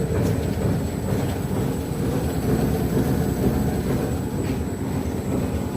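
Kuper FLI 1000 veneer splicer running: a steady mechanical rumble with a thin high whine over it and a few faint ticks.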